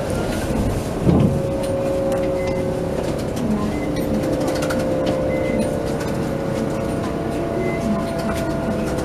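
Arakawa Line streetcar running, heard from inside the driver's cab: a steady whine from its electric motor gear and the rumble of wheels on the rails, with one knock about a second in.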